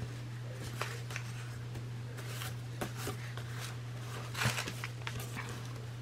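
Faint rustling and light taps of paper being handled and pressed flat onto a journal page, with a slightly louder rustle about four and a half seconds in, over a steady low hum.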